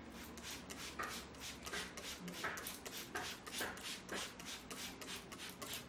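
A masseur's hands rubbing briskly over skin and hair in a massage: a quick, even run of scratchy strokes, about four or five a second.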